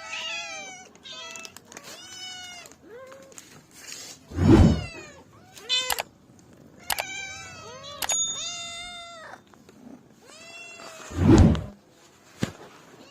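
Cats meowing over and over: many short, high-pitched, arching mews, with two much louder calls about four and eleven seconds in.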